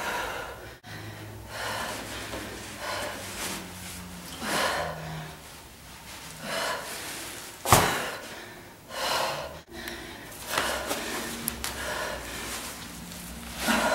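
A woman breathing hard from exertion, with short forceful exhalations and gasps about every one to two seconds as she lifts and presses a sandbag. One sharper, louder burst comes a little past halfway.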